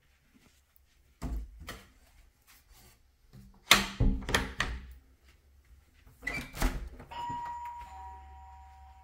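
Wooden closet door being handled and shut: a series of knocks and thumps, the loudest about four seconds in. About seven seconds in, a two-note chime sounds, a higher note and then a lower one, and both ring on and fade slowly.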